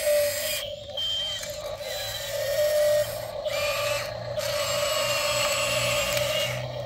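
Small electric gear motors of a handmade RC model excavator whirring and whining as it works, with the pitch wavering and a few brief stops and restarts.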